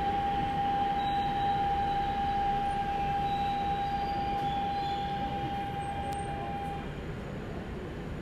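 Daegu Metro Line 1 subway car running, heard from inside the cabin: steady rumble and rail noise with a single steady high-pitched tone that fades out about seven seconds in.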